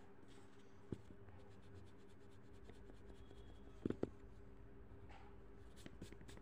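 Pencil and hand on drawing paper: faint handling and pencil sounds, with a light tap about a second in and two sharper knocks close together around four seconds, over a steady low hum.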